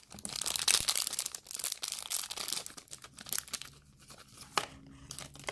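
Thin clear plastic packaging crinkling and tearing as it is pulled open and pink plastic clay tools are slid out. The crackling is densest over the first three seconds, then thins to scattered rustles, with a sharp click about four and a half seconds in.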